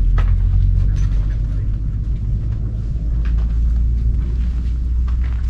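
Loud, steady low rumble, with a few faint ticks over it.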